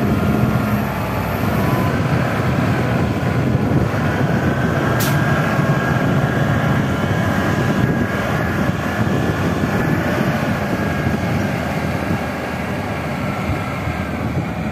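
Hindustan wheel loader's diesel engine running steadily under load as the bucket pushes and spreads loose coal, with a faint high whine through the middle and one sharp tick about five seconds in.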